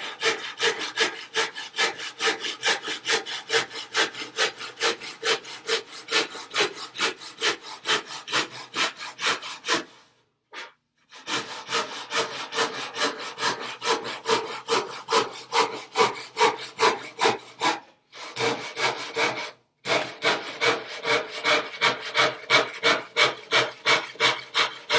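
Handsaw cutting through a pine board in quick, regular strokes, about three a second. The sawing stops briefly about ten seconds in and twice more near eighteen and twenty seconds in.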